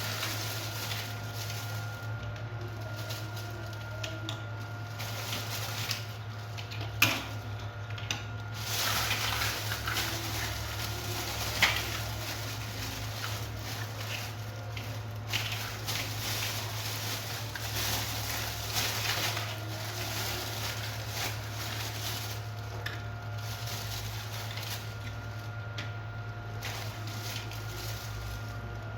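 Plastic toy vehicles being handled, with a few sharp clicks and knocks over a steady low hum.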